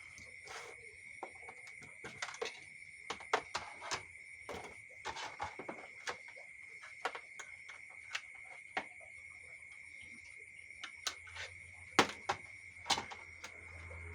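Irregular sharp clicks and taps of something being handled, likely a laptop and its packaging being unboxed, over a constant high-pitched whine. The loudest clicks come near the end.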